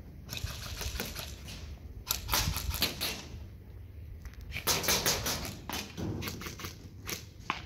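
Airsoft guns firing in several rapid bursts of sharp clicks, the loudest about two and five seconds in.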